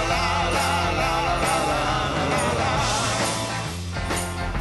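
Rock music with guitar and drums playing over the footage.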